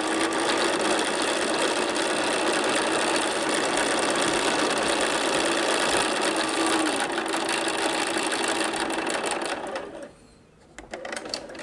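Bernina sewing machine running steadily as it stitches a seam through pieced quilt fabric. It stops about ten seconds in, and a few light clicks follow.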